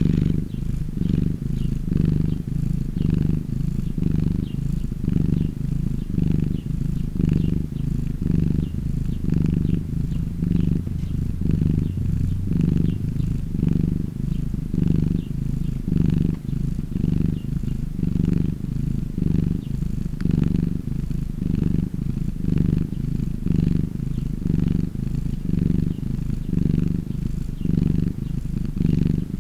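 Domestic cat purring steadily, close up, the low rumble swelling and fading in an even rhythm with each breath in and out.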